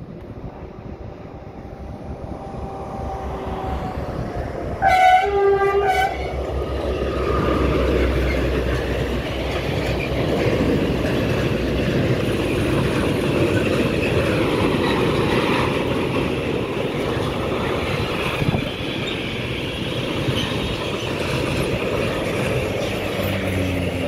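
Freight train sounding one horn blast, about a second long, about five seconds in, as it approaches. A long string of tank wagons then rolls past close by with a steady rumble and clatter of wheels on rails.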